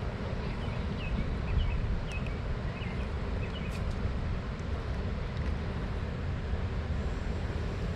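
Steady low outdoor rumble, like wind or moving water, with a small bird chirping several times in the first few seconds.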